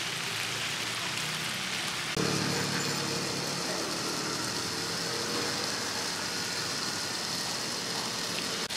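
Buns water-frying in a large flat pan, a steady crackling sizzle and hiss. About two seconds in, a steady low hum joins the sizzle.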